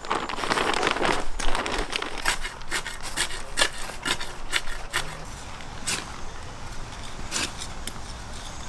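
Shovel scraping and digging into clay soil to mix in organic compost: a dense rushing pour of compost from a bag in the first second or so, then a series of short, sharp scrapes of the blade through the soil.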